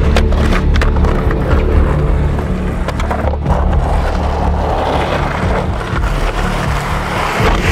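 Soundtrack music with a low bass line, over skateboard wheels rolling on asphalt and a few sharp clacks of the board.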